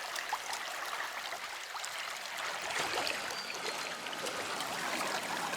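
River water running and trickling steadily, with a few faint ticks.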